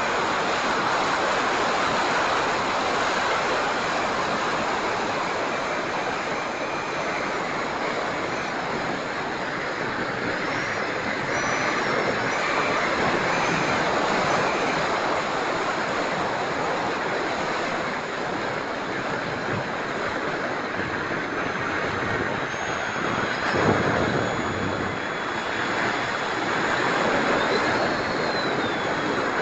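A Habu STS electric ducted-fan RC jet flying: a steady rushing noise with a faint high fan whine that shifts in pitch, rising and then falling near the end. A short louder bump comes about two-thirds of the way through.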